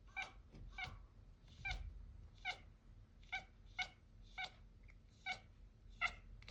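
Kitten chattering at birds: a run of about ten short, clipped 'ka-ka' calls, one every half second or so.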